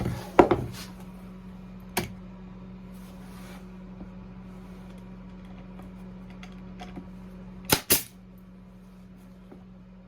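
A few sharp knocks and clicks from work on the wood pieces: one cluster just after the start, one about two seconds in, and two in quick succession near the end. A steady low hum runs underneath.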